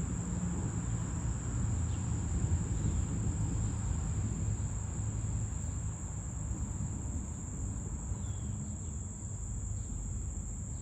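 A late-summer insect chorus keeps up a steady, unbroken high-pitched buzz, with a low rumble underneath.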